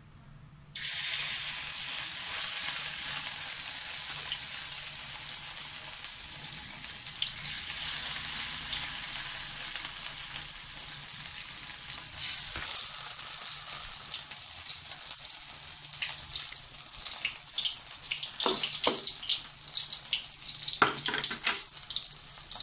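Shrimp fritter batter frying in hot oil in a wok: a steady sizzle that starts suddenly about a second in. Crackling pops come more often in the second half.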